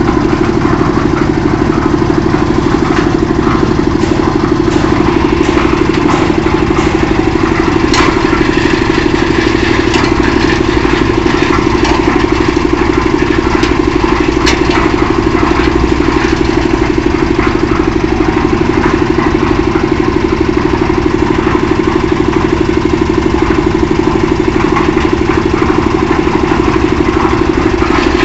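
Concrete mixer running steadily: an engine drone with a rapid even pulsing and clatter, and two sharp knocks about 8 and 14 seconds in.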